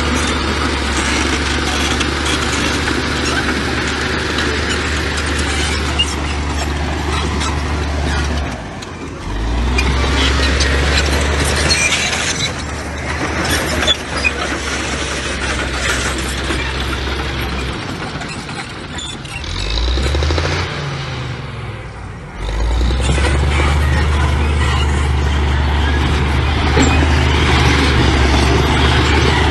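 Heavy diesel engine of earthmoving machinery running hard, with dense mechanical noise over its low steady note. The engine note dips and changes about nine seconds in, then goes unsteady with a brief rising rev around twenty seconds before settling back to a steady pull.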